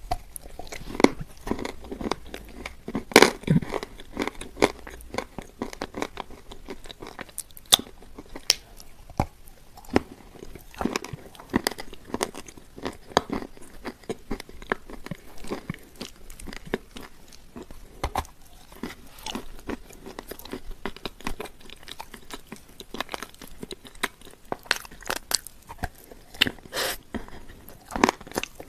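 Close-miked eating sounds: biting into and chewing a crumbly sweet, with many irregular soft crunches and mouth clicks, the loudest bite about three seconds in.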